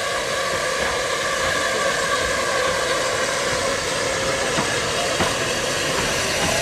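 Metropolitan Railway E class tank locomotive No. 1 passing close by with its train of coaches: a steady hiss of steam mixed with the running noise of the coaches' wheels on the rails.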